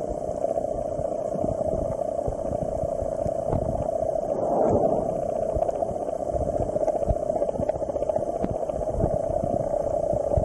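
Underwater ambience beside humpback whales: a steady droning hiss with fine crackling, swelling briefly about halfway through.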